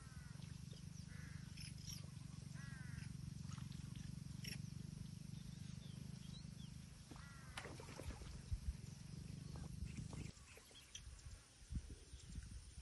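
Birds giving short, repeated calls over a low steady hum that cuts off about ten seconds in; a few low thumps follow near the end.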